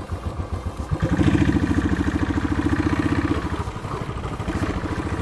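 Motorcycle engine running at low revs, then opened up about a second in as the bike pulls away, with an even pulsing beat; it eases off a little past three seconds in.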